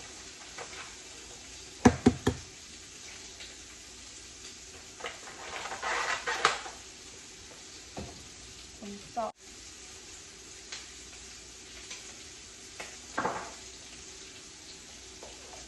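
Eggs frying in a pan with a faint steady sizzle, broken by a quick run of sharp knocks about two seconds in and further kitchen clatter around the middle and near the end.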